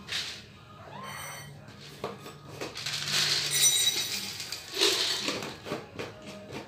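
Dry cat food poured from a plastic jar, rattling and clinking into ceramic bowls in two main pours, about three seconds in and again near five seconds.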